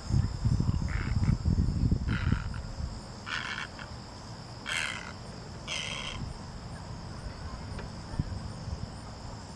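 A great egret gives five short harsh croaks about a second apart as it flies. A steady high buzz of insects runs underneath, and a loud low rumble of noise on the microphone fills the first two seconds.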